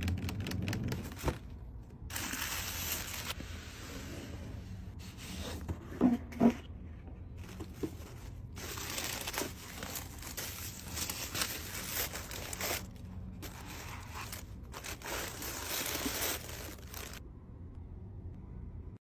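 Paper packaging and a bag being handled during an unboxing: uneven rustling, crinkling and scraping with small clicks. There are two louder knocks about six seconds in, and the sound stops about two seconds before the end.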